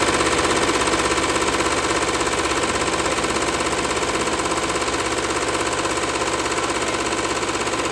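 HappyJapan multi-needle embroidery machine running at speed, stitching lettering into a knitted beanie: a steady, rapid, even chatter of needle strokes.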